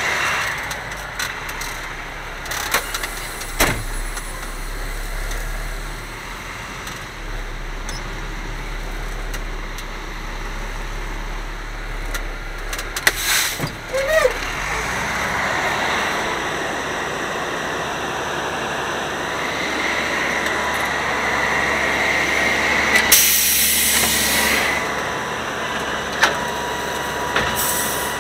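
Grapple truck's diesel engine running, heard from inside the cab, with scattered clicks and knocks and a loud hiss of air about 23 seconds in.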